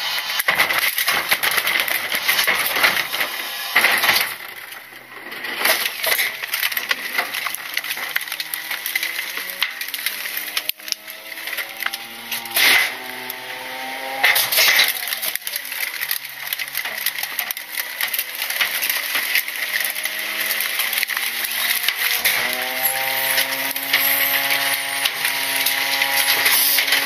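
Rear-loader garbage truck's packer working trash in the hopper, with clattering, cracking and crunching of refuse. A humming whine rises in pitch several times as the packing mechanism runs.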